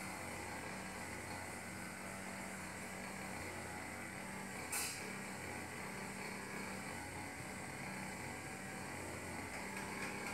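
Steady low hum under a background hiss, with one short, sharp hiss about halfway through.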